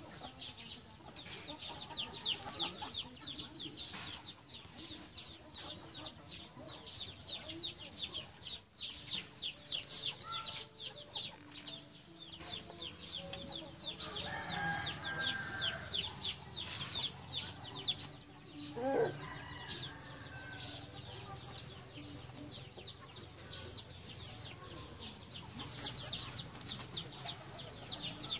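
Chickens clucking, with one louder call about nineteen seconds in, over a rapid high-pitched chirping.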